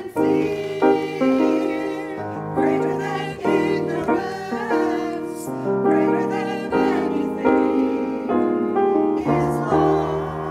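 Mixed choir singing with piano accompaniment.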